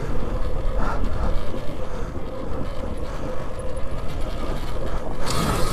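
Alta Redshift MXR electric dirt bike riding over a rough dirt trail: a steady low rumble of tyres and chassis over the ground with a faint steady motor whine. A brief rush of hiss comes near the end.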